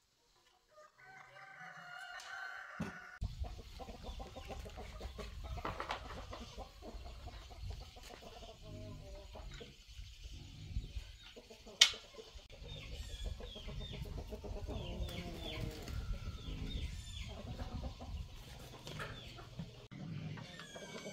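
Chickens clucking, with a rooster crowing for about two seconds near the start. A steady low rumble runs underneath from about three seconds in, and a single sharp knock about twelve seconds in is the loudest sound.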